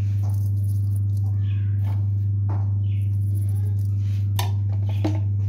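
A steady low hum, with a few faint clicks and taps over it.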